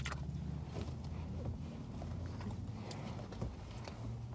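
Steady low engine hum from a car idling close alongside, heard from inside a parked car whose own engine is off, with a few faint clicks over it.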